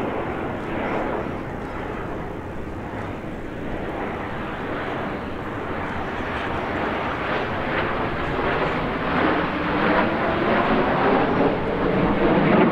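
Jet noise from a formation of five CT-114 Tutor jet trainers, each with a single J85 turbojet, flying past as a steady rushing sound that grows louder over the second half.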